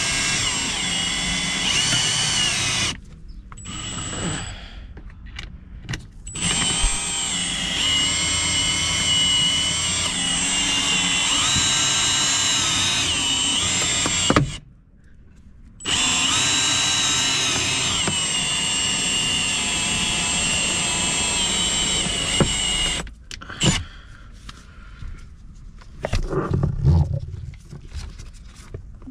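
A handheld power tool whining steadily at high pitch in long runs. It stops about three seconds in, runs again from about six to fourteen seconds and from sixteen to twenty-three seconds, with quieter clattering of tool handling in the pauses and near the end.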